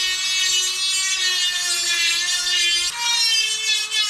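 Handheld electric power tool running at speed and working against metal, its whine dipping and shifting in pitch as it bears down, with a brief change about three seconds in.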